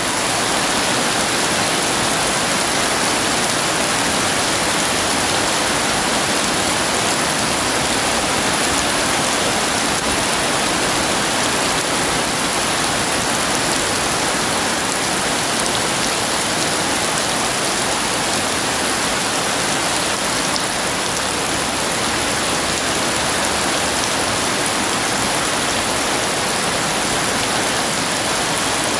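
Heavy rain pouring down in a steady, unbroken hiss, with no thunder in this stretch.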